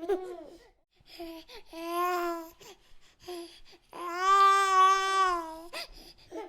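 Baby crying: short fussing sounds, then a brief cry, then one long, steady wail about four seconds in that lasts nearly two seconds.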